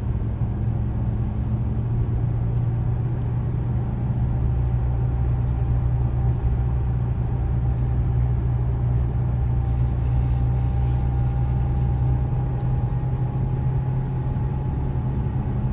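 Toyota RAV4 heard from inside the cabin, driving in third gear: a steady engine and road rumble with a faint steady whine over it, and no jolt or change in the sound.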